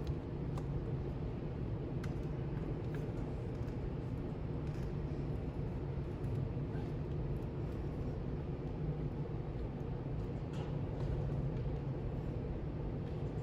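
Steady low rumble with a few faint clicks, like a vehicle or machinery running.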